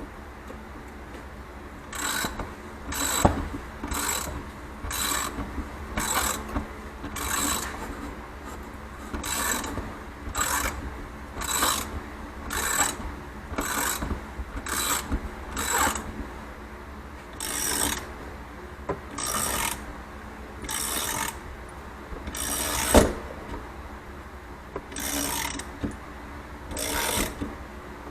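A ratchet wrench is cranking a motorcycle coil-spring compressor on an ATV coil-over shock spring. Each stroke gives a short burst of ratchet clicks, about one stroke a second. Two sharp metallic knocks stand out, one about 3 seconds in and a louder one a little over 20 seconds in.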